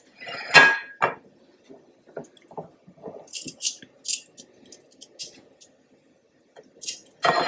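Metal tongs lifting butter-sauced chicken wings out of a glass bowl: wet squishing, with short clicks and ticks of the tongs against the glass. A louder knock about half a second in.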